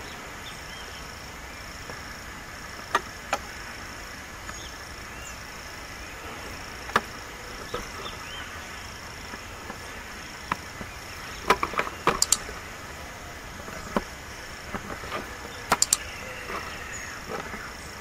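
High insect trill pulsing evenly on and off, with scattered sharp ticks on top, a cluster of them about twelve seconds in and a quick pair near the end.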